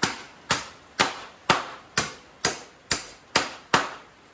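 Hammer knocking protruding nails back into a piece of demolished timber: nine sharp blows at about two a second, each with a short ring.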